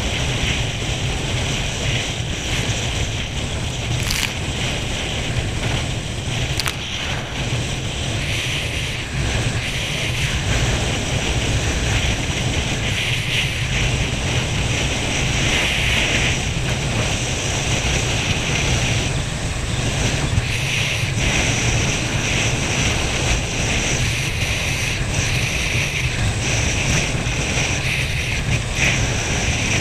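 Water rushing and churning steadily past a water ski towed through a boat's wake, with wind buffeting the microphone.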